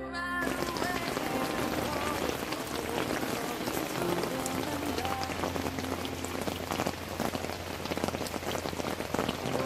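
Heavy rain falling on a lake and on a shelter's canopy overhead, a dense steady patter of many small drop ticks, with water streaming off the canopy's edge.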